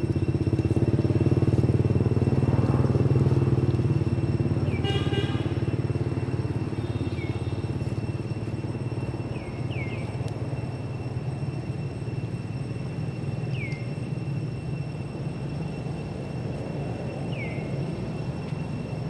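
A motorbike engine running steadily, loudest in the first few seconds and then easing off a little. Short high falling chirps come every few seconds over it.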